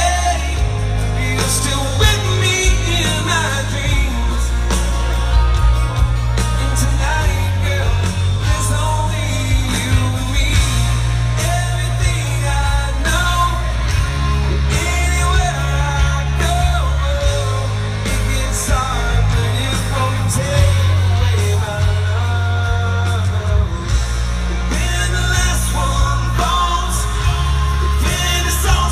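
Live rock band playing, with a singer's voice over held bass notes, drums and cymbals.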